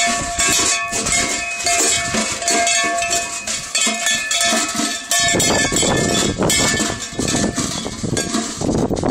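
Sleigh bells on a pony's saddle jingling in a steady rhythm as the pony moves. About five seconds in, a loud rough noise takes over from the bells.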